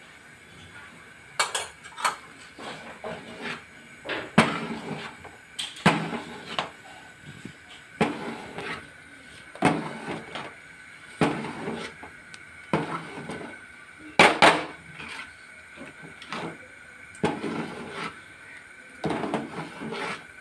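Metal spoon scraping and knocking against the sides of a large aluminium pot while stirring thick dal makhani, one stroke about every second and a half.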